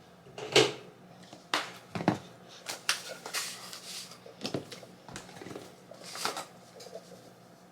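Spice shakers being handled and shaken over a bowl of onions: a series of irregular clicks and knocks with short rattling, hissy shakes.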